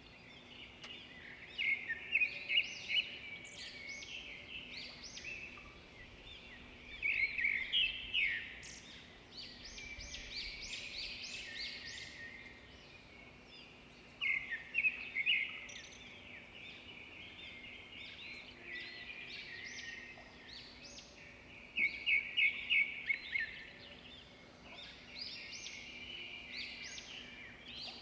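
Several small birds chirping and trilling, with louder bursts of quick repeated notes four times.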